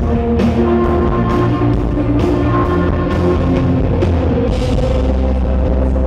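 Indie rock band playing live: electric guitars, bass and drums, with drum and cymbal hits on a steady beat about twice a second, loud and rough as heard from within the crowd.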